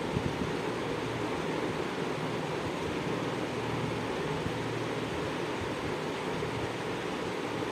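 Minced mutton frying in a metal kadai with chopped onion, green chilli and herbs: a steady sizzle, with a light knock just after the start.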